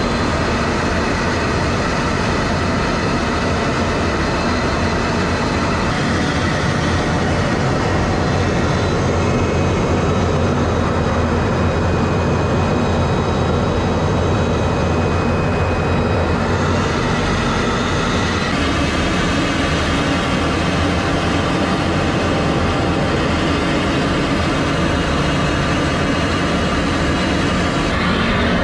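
Steady loud mechanical drone with a few faint whining tones, its character changing abruptly several times.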